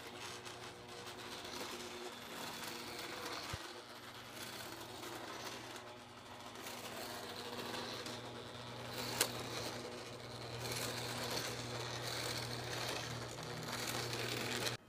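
HO scale model train running past on its track: a steady small electric motor hum with the wheels rattling along the rails. A sharp click about nine seconds in, and a softer one about three and a half seconds in.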